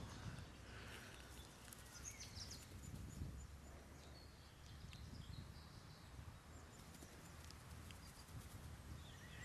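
Near silence: quiet woodland ambience with a faint low rumble and a few faint, brief bird chirps.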